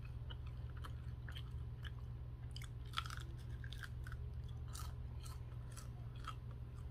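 Close-up chewing of crispy fried chicken wings: faint, irregular small crunches and wet mouth clicks. A steady low hum runs underneath.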